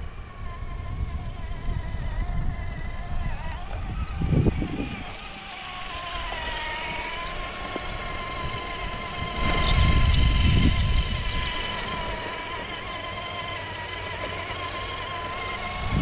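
Traxxas TRX-4 RC crawler running on Deep Terrain Traxx track units: a steady electric motor and gear whine that shifts slightly in pitch with the throttle. Low rumbling surges come about four seconds in and again around ten seconds in, the second the loudest.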